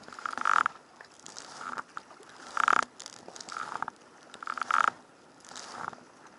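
Double-bladed kayak paddle strokes in choppy seawater: the blades splash in and pull through about once a second, alternating louder and softer strokes.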